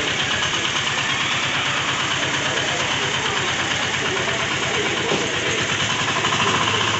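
Motorcycle engine idling steadily, with a fast even pulse.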